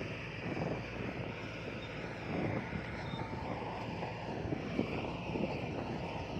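Heavy earthmoving machine's diesel engine running steadily, with a few short clanks.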